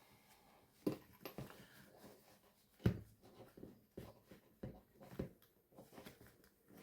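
Handling sounds at close range: a scattering of light knocks and clicks as small doll clothing and parts are handled, the loudest about three seconds in.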